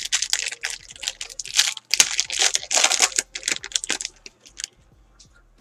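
Wrapper of a trading card pack being torn open and crinkled by hand, a dense run of crackles and rips that stops about four and a half seconds in.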